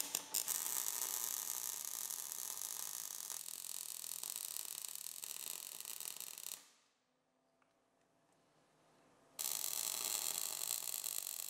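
Welding arc crackling and hissing steadily while a pole is welded onto a steel trailer hitch. It cuts off suddenly about six and a half seconds in, leaving near silence for about three seconds, then a second weld starts up with the same crackle.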